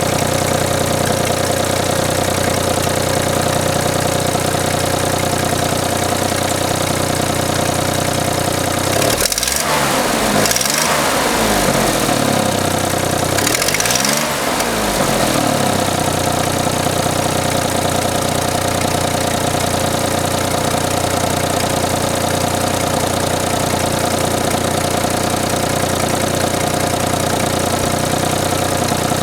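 Suzuki Jimny JA11V's three-cylinder engine idling with a clattering rattle, which the owner hears as an odd noise from the engine bay. It is revved up and back down twice, about nine and thirteen seconds in.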